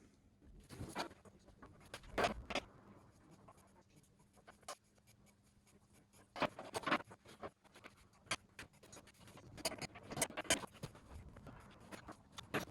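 Scattered light clicks, knocks and scrapes of metal parts and hand tools being handled while the car hoist's mechanical parts are fitted, with a faint steady hum that stops about halfway through.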